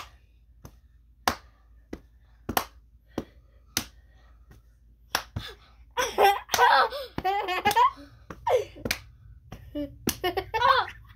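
Hands clapping together in a clapping game, sharp claps at a steady pace of about one and a half a second, then quicker and less even claps. From about six seconds in, children laughing over the claps.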